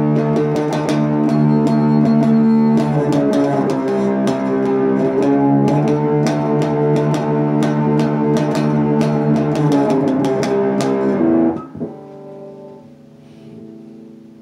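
Electric guitar played through an MXR Prime Distortion pedal set to full distortion with the tone turned low: heavily distorted chords picked rapidly, the chord shifting every few seconds. The playing stops abruptly near the end, leaving a faint ring that fades.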